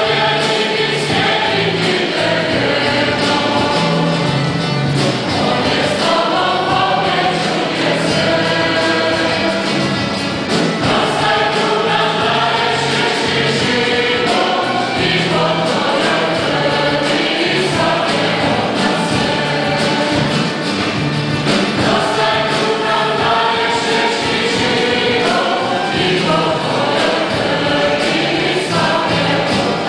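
Youth choir singing an offertory hymn, accompanied by acoustic guitars, bass guitar and violin.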